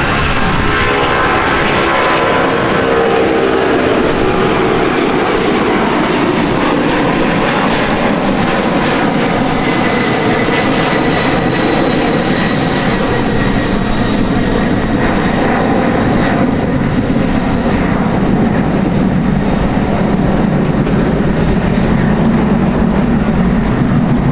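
Airplane engines running loud as an aircraft passes close by, with pitch lines sliding downward in the first few seconds and a thin high whine in the middle. Wind rumbles on the microphone underneath.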